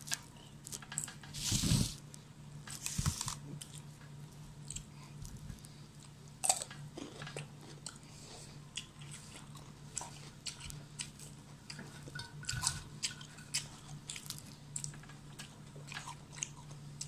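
A person eating with their hands: noodles slurped in with a loud rushing sound about two seconds in, then chewing and crunching with many small clicks and mouth smacks. A steady low hum runs underneath.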